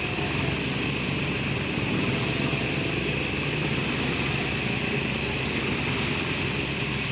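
A steady engine drone that holds one pitch throughout, with a constant high whine above it.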